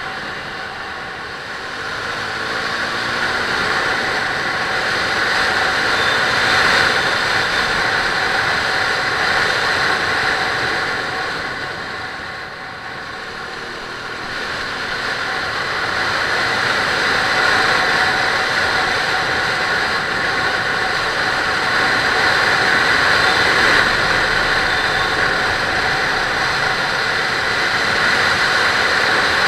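Riding on a KTM RC 390: wind rushing past a helmet-mounted camera, with the bike's single-cylinder engine running underneath. The rush eases for a few seconds about halfway through and then builds again.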